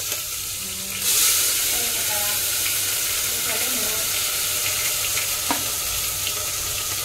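Green chillies frying in hot oil for a dal tempering (vaghar). The sizzle surges about a second in, then holds steady while the pan is stirred. There is a single light knock about five and a half seconds in.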